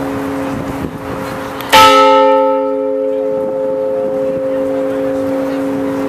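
Large bell rung by pulling a rope. One strike comes a little under two seconds in, a bright clang over the hum still ringing from the stroke before. It fades into a long, steady ring.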